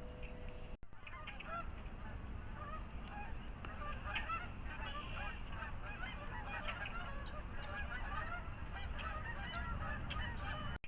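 A flock of birds calling, many short overlapping calls at once, starting about a second in, over a steady low outdoor rumble.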